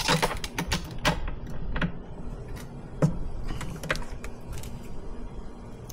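Irregular metallic clicks and knocks of an oil filter wrench working the oil filter loose on an outboard motor, thickest in the first couple of seconds and again a few seconds in.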